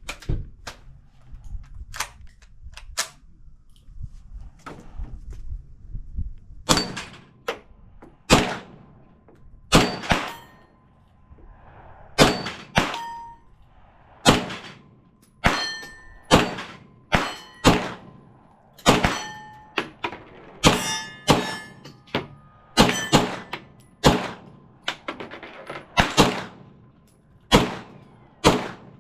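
Gunfire from pistols or pistol-caliber carbines at steel targets: a long string of shots, each followed by the ringing clang of a hit steel plate. A few fainter shots over the first six seconds, then about two dozen louder ones, roughly one a second or faster.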